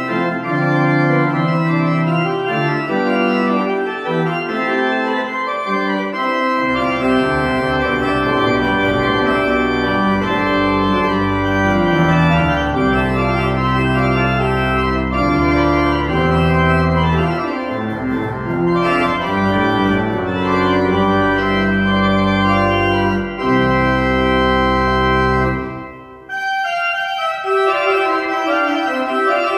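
Church organ playing sustained full chords, with a deep pedal bass line coming in about six seconds in. Near the end the music briefly breaks off and resumes on lighter, higher chords without the bass.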